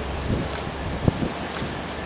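Wind buffeting the microphone, with irregular low thumps over a steady low rumble; the strongest thump comes a little over a second in.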